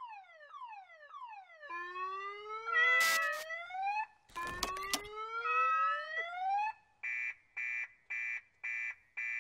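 Electronic sound effects: a quick series of falling tones, then long rising sweeps broken by two sharp noisy hits, which are the loudest moments. Near the end comes a regular run of short electronic beeps, nearly two a second.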